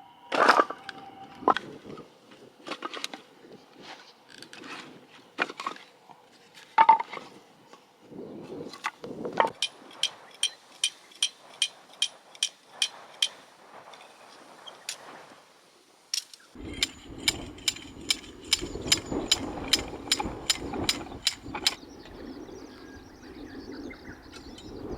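Irregular knocks and clinks, then two runs of quick, even taps at about three a second, the second over a steady rushing background.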